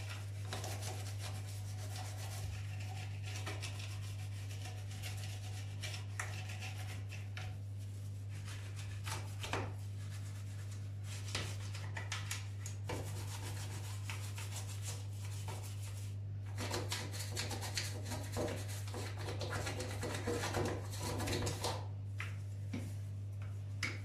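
An old toothbrush scrubbing around the burner caps of a gas hob: a steady run of short, quick brushing strokes. A low steady hum runs underneath.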